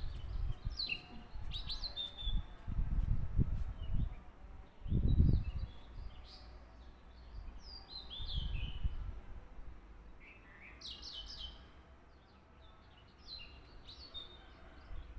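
Small birds chirping in the background, with short high chirps scattered throughout. Several low, dull thumps come from paper being handled on a tabletop, the loudest about five seconds in.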